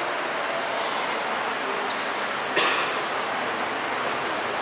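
Steady, even hiss of background noise, with one brief louder noise about two and a half seconds in.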